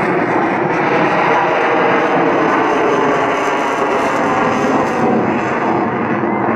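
Jet noise of a MiG-29 Fulcrum's twin Klimov RD-33 turbofans as the fighter manoeuvres in flight: a loud, steady rush, its hiss thinning a little near the end.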